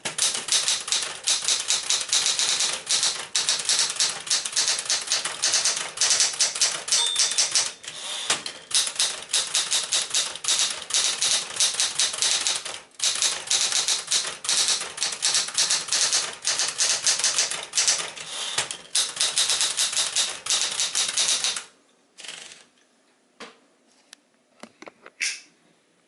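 Smith-Corona Galaxie Twelve manual portable typewriter being typed on quickly, its typebars striking in a dense, fast run of clacks with a few short pauses. The typing stops a few seconds before the end, leaving only a handful of scattered, quieter clicks.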